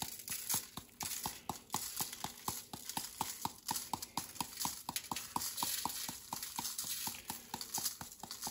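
Plastic shaker of coarse dry seasoning mix with crushed red pepper being shaken rapidly, the flakes rattling against the container in an even rhythm of about six shakes a second.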